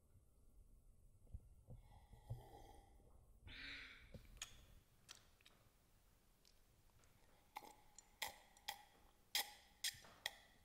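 A woman drinking water from a glass, all quiet: a soft breath about three and a half seconds in, then a run of short gulps over the last three seconds.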